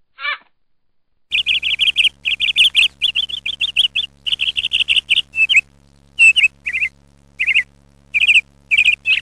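House martin calls: rapid, dry chirruping twitters in dense runs, breaking into shorter separate bursts in the second half, over a faint steady hum.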